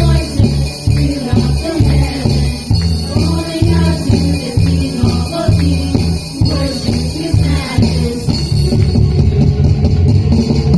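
Church worship music: voices singing over a band with a steady, regular beat.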